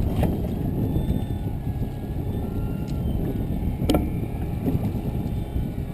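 Steady low rumble of a trolling fishing boat under way, with a sharp click about four seconds in.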